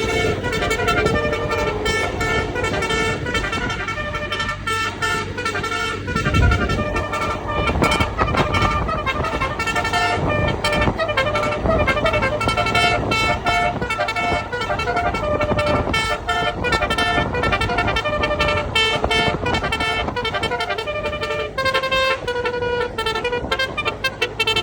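A bus's telolet 'basuri' musical horn playing a tune, a long run of notes changing pitch step by step.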